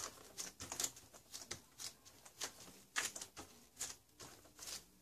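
Hands rubbing and pressing down on foam board to bond it to a diamond-painting canvas with contact cement, a series of short, soft swishes about two a second.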